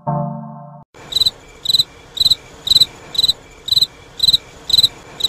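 Cricket chirping sound effect, the stock crickets that stand for an awkward silence: a short chirp about every half second over a faint hiss, starting about a second in. Before it, a low tone fades out.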